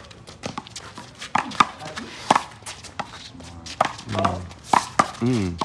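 Rubber handball being slapped by hands and smacking off the wall during a one-wall handball rally: a string of sharp, irregular slaps. A low voice is heard about four seconds in.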